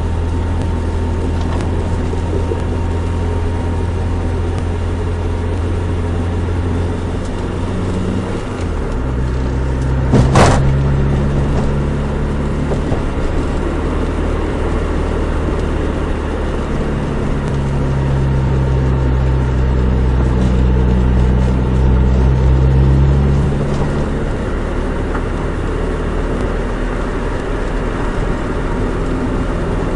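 Nissan Micra 1.3's four-cylinder engine and road noise on the move. The engine note shifts to a new pitch about nine seconds in, with a sharp click a moment later. It grows fuller until it eases back down near the last quarter.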